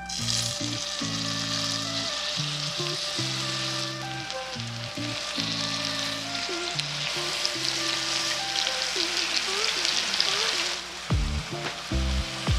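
Melted butter sizzling and spitting steadily in a frying pan as whole peeled mandarins are set into it to fry. The sizzle drops away about eleven seconds in.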